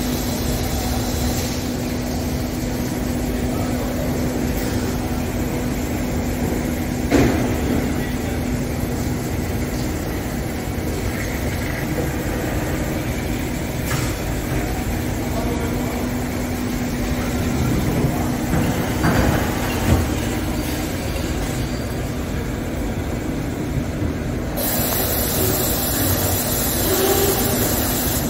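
Mori Seiki MH-633 machining centre milling a workpiece under flood coolant: a steady hum from the running spindle over the hiss and splash of coolant spray, with a few short knocks. A brighter hiss comes in near the end.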